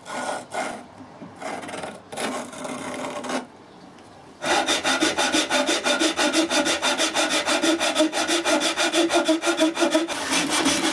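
Handsaw cutting a spalted beech board: a few separate, slower scraping strokes, then, after a short pause, a long run of fast, even saw strokes at about six a second, the blade ringing faintly through them.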